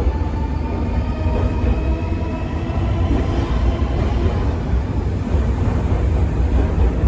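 Nankai 6000-series stainless commuter train running along the platform as it pulls into the station: a steady low rumble of the cars and wheels on the track, with a faint motor whine in the first second or two.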